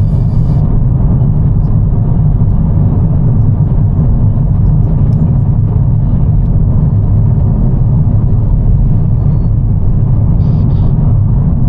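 Loud, steady low rumble of a moving vehicle, unchanging throughout.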